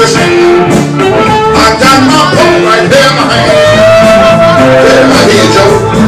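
Live blues band playing loudly, with electric guitar and a man singing. About halfway through there is one long held note.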